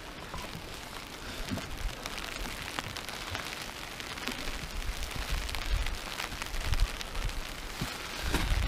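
Rain falling on a tarp overhead: a dense, steady scatter of drop hits, with gusts of wind rumbling on the microphone, stronger near the end.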